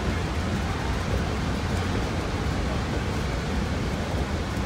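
Steady low noise of a passenger train moving behind Shay geared steam locomotives, heard from on board the car, with no clear beat.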